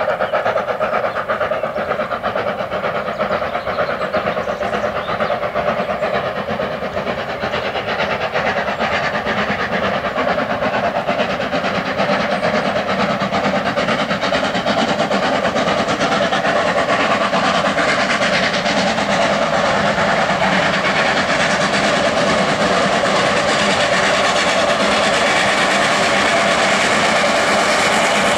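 Steam train approaching: a small steam tank locomotive working its train of coaches, a loud continuous running noise that grows brighter toward the end as it draws near.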